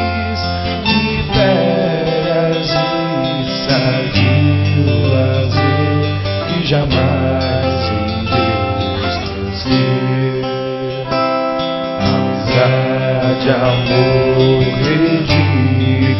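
Background pop music with strummed acoustic guitar over a steady bass line, with some singing.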